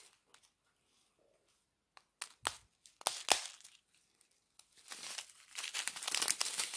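A strip of small plastic zip bags of diamond-painting drills being handled and crinkled. A few sharp crinkles come about two to three seconds in, then steady crinkling near the end.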